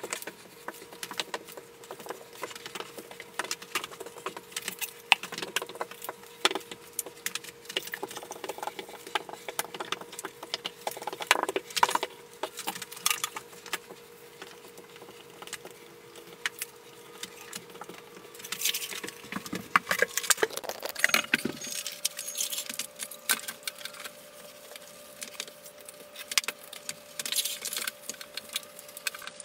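Irregular scraping, wiping and light tapping of hand grouting work on marble wall tile, with a faint steady hum in the background that steps up in pitch about two-thirds of the way through.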